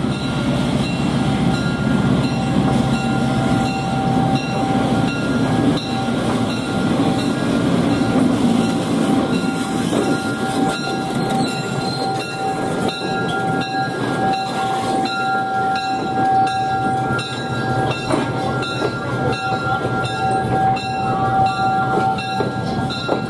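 EMD SW1 diesel switcher locomotive, with its V6 567 engine, running as it rolls past pulling cabooses, followed by the steel wheels of the cabooses rolling on the rails. The engine rumble is heaviest in the first half and eases as the locomotive goes by, while a steady high-pitched tone sounds throughout.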